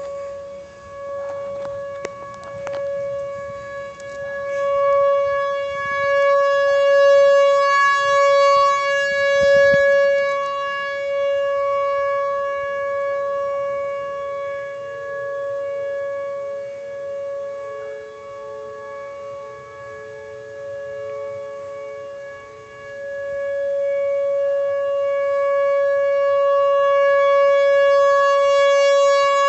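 Outdoor civil-defense tornado siren sounding a long steady tone in a scheduled warning-system test, its loudness swelling and fading. For a while in the middle a second, slightly lower tone is faintly heard beneath it.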